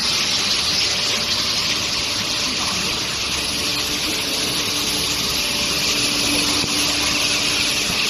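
Steady, water-like rushing hiss of a steel bar induction hardening and tempering line running, with a faint steady hum coming in about halfway through.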